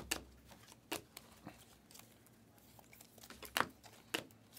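Trading cards being handled and flipped, with a few short, sharp snaps and rustles spread across a few quiet seconds.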